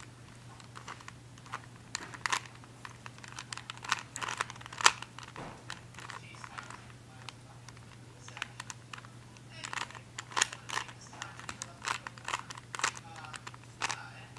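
Plastic Rubik's cube being twisted by hand: irregular clicking and clacking as the layers turn, sometimes in quick runs of several turns. A steady low hum runs underneath.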